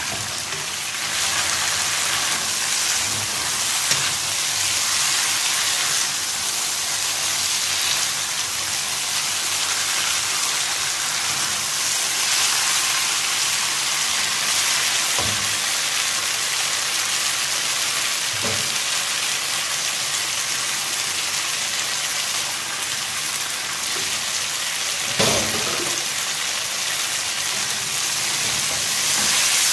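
Chicken wings in a thick tomato sauce sizzling steadily in a nonstick wok while being stirred with a wooden spatula, with a few knocks of the spatula on the pan, the loudest about 25 seconds in.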